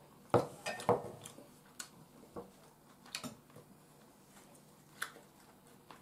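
Tableware handled on a table: a plate and spoon set down and moved, giving a few separate clinks and knocks. The two loudest come close together near the start, then lighter taps follow.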